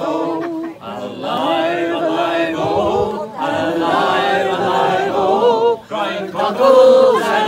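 A group of people singing together unaccompanied, a chant-like song with short breaks between lines.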